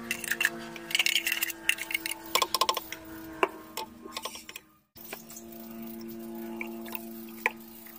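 A metal spoon taps and scrapes against a plastic blender jar as thick ingredients are spooned in, giving a run of sharp clicks, over a steady background hum. The sound cuts out briefly just before halfway; after that, cream pours into the jar with only a few faint ticks over the hum.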